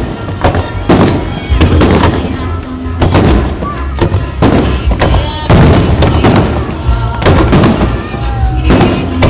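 Fireworks shells bursting in quick succession, a sharp bang roughly every half second to second, with music playing underneath.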